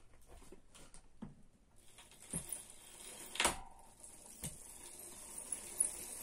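Bicycle freewheel ratchet turning, faintly. Light pawl clicks come first, then a dry, high rustle with a couple of sharper clicks, the rustling the owner takes as a sign that the ratchet is nearly worn out.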